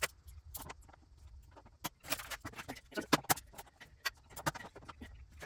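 Irregular clicks and knocks of hand tools working at a stubborn screw on an ATV's plastic body panels, with a brief cluster of louder taps about three seconds in.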